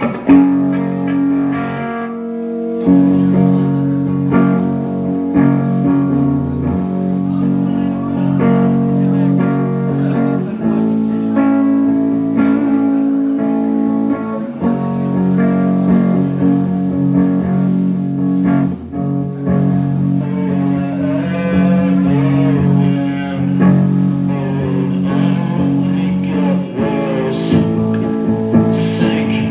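Live band playing a song led by guitar, loud and steady, with a brief drop about two seconds in before the full band comes back in.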